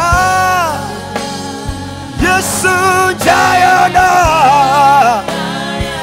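Live gospel praise song: a man sings held, wavering notes into a microphone, with backing singers and band accompaniment.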